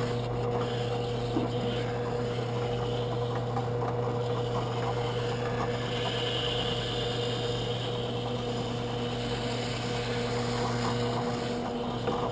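Drill press running steadily with a sandpaper drum bit, grinding the rough base edge of a split turkey feather held in a grinding jig, trimming it to a level, square edge for gluing to an arrow shaft. A scratchier sanding hiss rises about six seconds in and fades a second or so later.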